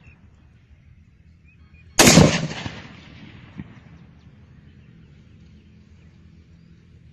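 A single rifle shot about two seconds in, with an echo that trails off over about a second and a half, then a faint knock.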